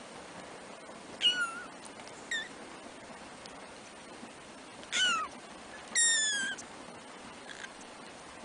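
Three-week-old kittens mewing: four high, thin mews that each fall in pitch, about a second, two, five and six seconds in, the last one the longest, with a faint one near the end.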